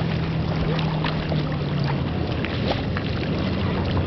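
Wind on the microphone over lake water splashing as dogs swim and a person wades, with a steady low engine hum underneath that drops in pitch about two seconds in.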